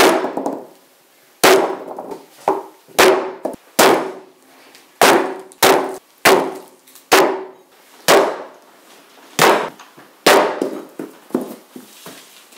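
An axe chopping vegetables on a wooden chopping board: a dozen or more irregular, loud chopping strikes, each with a short ring.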